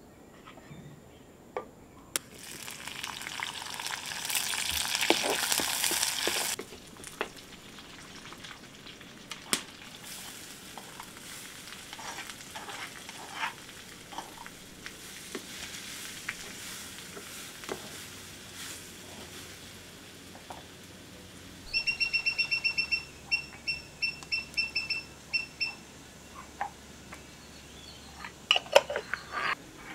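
Food sizzling loudly for about four seconds as it goes into a hot black clay pan on a wood-fired clay hearth, followed by wooden-spoon scrapes and clicks against the pan and bowl. A bird chirps in quick rapid notes for a few seconds about two-thirds of the way through.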